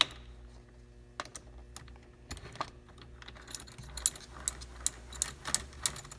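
Light metal clicks and taps of a small two-jaw puller being hooked onto a steering wheel and its parts fitted together. The clicks are scattered at first, then come about two a second near the end.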